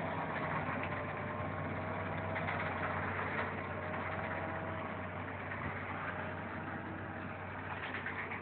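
Grape harvester's engine running steadily, with a constant low hum and a light mechanical rattle over it.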